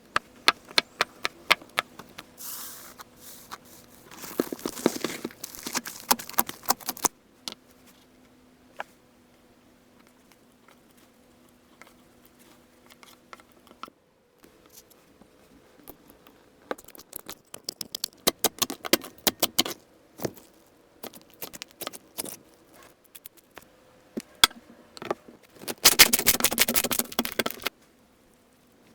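Slime being squeezed and stretched by hand: clusters of sharp clicks and pops with a quieter stretch in the middle, and a dense, loud crackling burst near the end.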